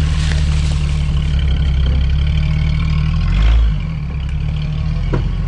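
Off-road Jeep's engine running with a steady low rumble, swelling briefly about three and a half seconds in, then easing off.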